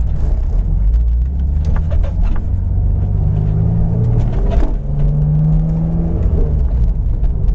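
Turbocharged BMW S52 straight-six in a 1999 Z3 M Coupe running under way, its pitch climbing in the middle with a brief dip in level about four and a half seconds in.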